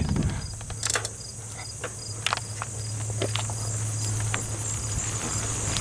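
Insects chirping in summer grass fields: a steady high buzz with a short chirp repeating about three times a second. Under it is a steady low hum, with scattered light clicks.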